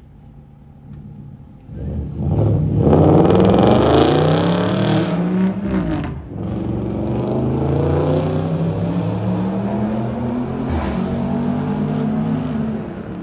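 Ferrari sports car accelerating at full throttle, its engine note climbing in pitch. About six seconds in the pitch drops sharply at an upshift, then climbs again in the next gear before fading near the end.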